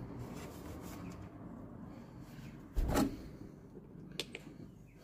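Hand-work noise from screws being taken out of a plastic car heater box on the firewall, with one knock about three seconds in and a small click about a second later.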